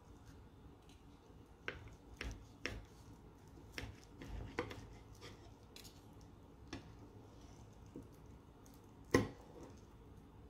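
Fork and knife cutting a folded crepe on a ceramic plate: a scattered series of light clicks and scrapes of cutlery against the plate, the loudest near the end.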